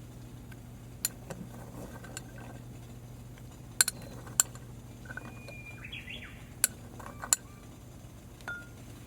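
Sharp, scattered clinks of hard objects being handled, about six of them, with a bird chirping about six seconds in over a steady low hum.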